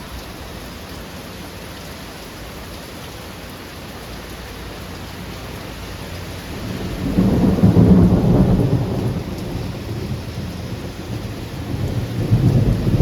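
Steady rain falling, then thunder rolling in about halfway through: a deep rumble that builds, peaks and eases, swelling again near the end, the thunder following a lightning flash.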